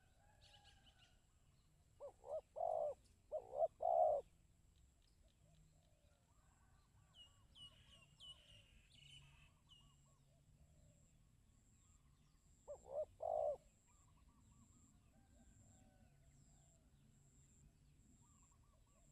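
Spotted dove cooing: two phrases, each of a few short coos and a longer closing note, about ten seconds apart. Faint high chirps of small birds come in between.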